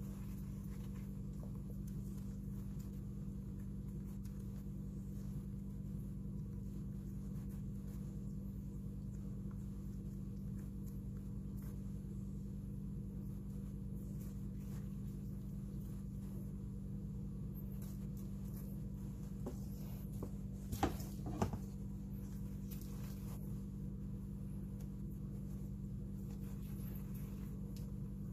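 A steady low background hum, with faint soft rustles and taps of hands shaping steamed-bun dough over plastic wrap, and two sharper clicks about two-thirds of the way through.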